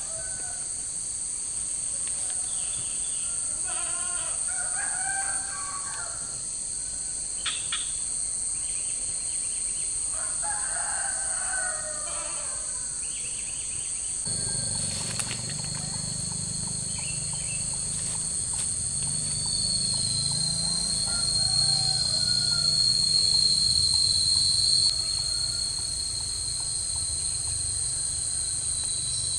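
A rooster crows twice, a few seconds apart, over a steady high-pitched drone of insects. About halfway through, a low rumbling noise comes in and continues.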